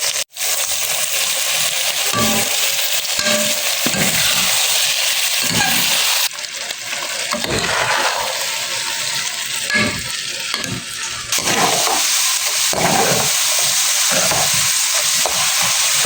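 Food sizzling in hot oil in a pan, with a utensil stirring and scraping against the pan now and then. The sizzle briefly drops out just after the start and changes level abruptly twice.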